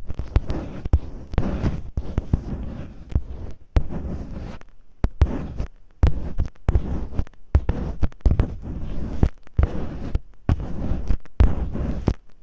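Masking tape rubbed and pressed against a close microphone in imitation of ear cleaning: irregular crackles, scratches and dull thumps, with a brief lull about four to five seconds in.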